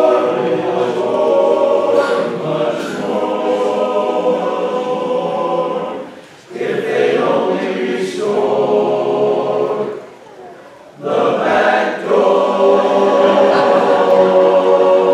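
Men's barbershop chorus singing a cappella in close harmony, sustained chords in phrases, with short breaks about six and a half and ten seconds in.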